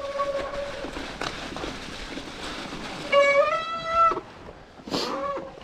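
Hydraulic disc brakes on a Cube mountain bike squealing under braking: one steady high squeal that stops under a second in, and another about three seconds in, lasting about a second and rising slightly in pitch. The rider puts the brake noise down to air in the brake line.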